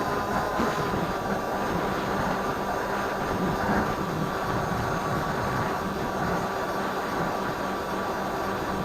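Firebird Stratos RC plane's electric motor and propeller running steadily, a constant drone over dense rushing noise, picked up by the keychain camera's microphone.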